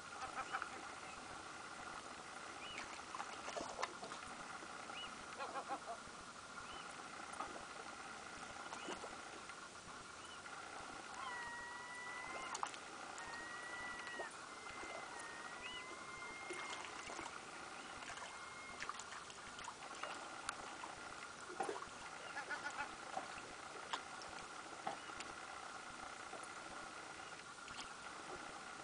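Great skua tearing at a mackerel on calm sea water: scattered small splashes and pecks over a faint, steady background. Around the middle comes a short run of drawn-out, whistle-like tones.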